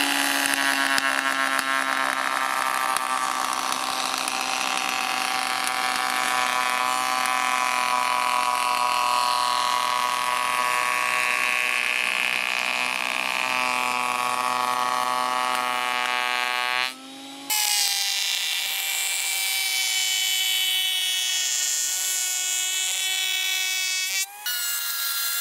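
Parkside PADM 1250 planer-thicknesser running with its cutterhead planing a board fed across the jointer table: a steady, high-pitched machine whine with many overtones, its pitch wavering slightly as the board is pushed through. The sound cuts off briefly about 17 seconds in and again about 24 seconds in, then goes on.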